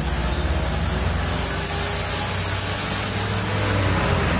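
Truck engine running steadily with a constant haze of road noise while driving, and a thin high whine that slides down and fades out about three and a half seconds in.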